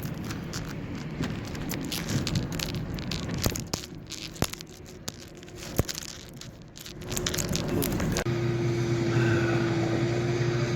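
Vehicle sounds: a rumble with scattered crackles and sharp clicks, then, after a sudden change about eight seconds in, a steady engine hum.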